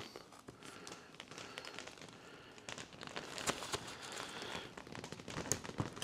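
Faint crinkling and scattered small clicks as a tight TPU 3D-printed connector, wetted with Windex, is forced onto a fiberglass rod, with hands rubbing the fabric cover around it. The clicks grow busier about halfway through.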